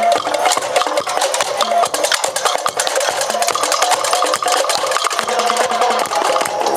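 Street-dance festival percussion music: fast, dense drumming with a short repeated melodic phrase over it.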